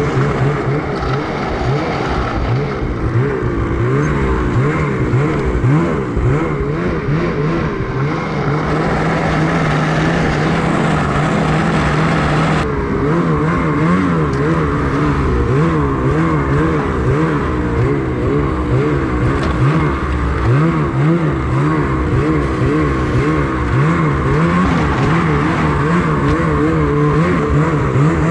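Ski-Doo 850 two-stroke twin snowmobile engine running under way, its pitch rising and falling with the throttle.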